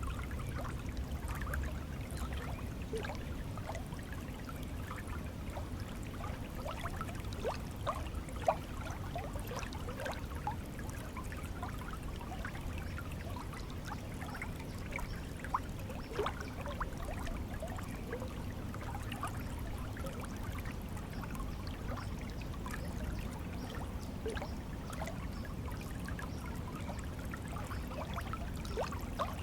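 Water flowing in a shallow stream: a steady rush with many small bubbling plinks and trickles.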